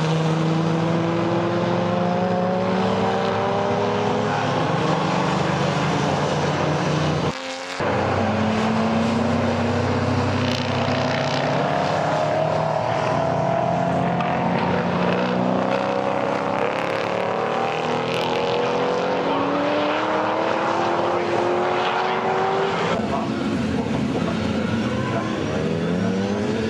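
TVR Griffith 400 race car's Ford V8 under hard acceleration. The engine note climbs steadily through each gear and drops back at every upshift, with a brief dropout in the sound about a quarter of the way in.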